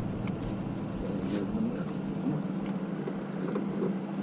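A steady low engine hum, with a few faint light clicks over it.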